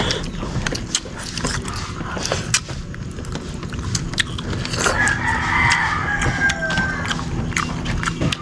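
A rooster crowing once, a single drawn-out crow of about two and a half seconds starting around five seconds in. Scattered light clicks run under it.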